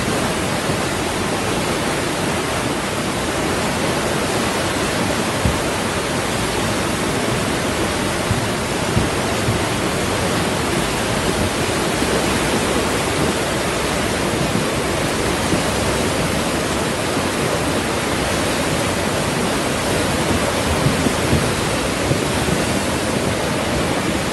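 Swollen, muddy river in flood after hours of heavy rain, its fast brown water rushing past in a steady, unbroken roar of turbulent flow.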